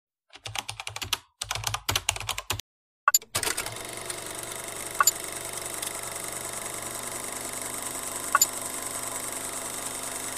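Keyboard typing: two quick runs of clicking key strokes in the first two and a half seconds. Then a steady hiss with a faint hum and two isolated sharp clicks.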